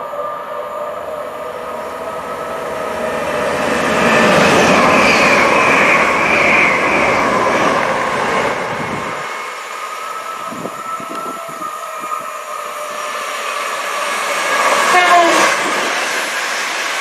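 Great Western Railway Hitachi Intercity Express Train running through the station at speed without stopping. Its drone builds as it approaches and is loudest from about four seconds in as it passes close, then the rush of the long train of coaches continues, swelling again near the end.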